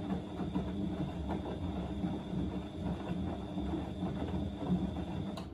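Siemens Extraklasse XL110A front-loading washing machine tumbling a wet load in the main wash of its Easy-Care cycle: a steady motor hum under the irregular churn and slosh of laundry and water turning in the drum.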